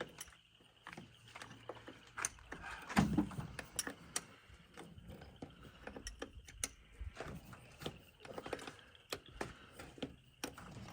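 Scattered metallic clicks and clanks, with a louder knock about three seconds in, as an engine is hoisted out of a car on a cherry picker.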